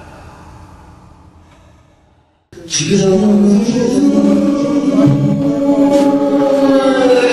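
A loud sustained chant-like vocal drone, several tones held together with slight wavering, starting suddenly about two and a half seconds in after a faint stretch that fades away.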